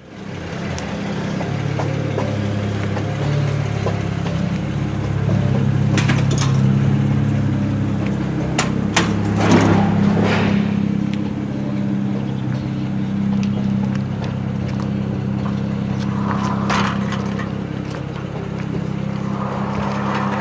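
Car engine running steadily, with a few short knocks partway through.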